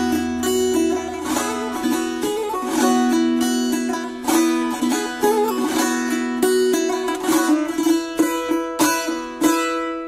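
Instrumental break in a Turkish folk song (türkü): a plucked string instrument plays a quick, busy melody of short repeated notes. A low sustained tone underneath fades out about a second in.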